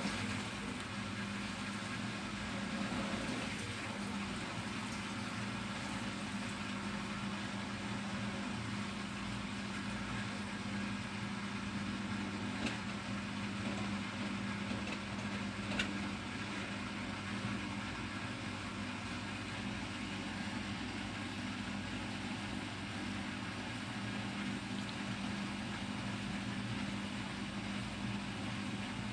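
Bosch Serie 6 front-loading washing machine running early in a 60 °C cotton program: a steady motor hum with a low drone, with two faint clicks in the middle.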